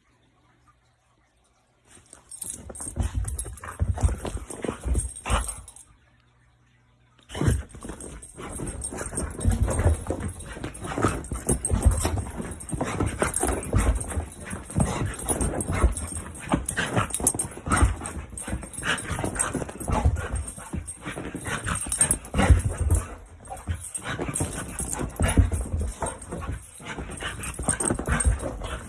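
Pet dogs vocalizing in many short, repeated bursts, their reaction to being barked at, in two stretches with a brief silence between them about six seconds in.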